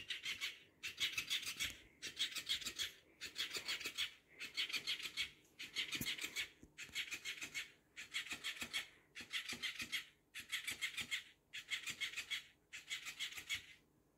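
Electric flopping-fish cat toy thrashing its tail against a rug in about a dozen bouts of roughly a second each, separated by short pauses; each bout is a rapid, scratchy flapping.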